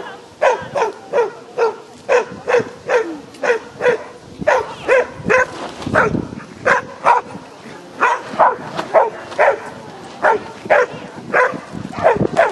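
A dog barking over and over, about two to three barks a second with only brief gaps.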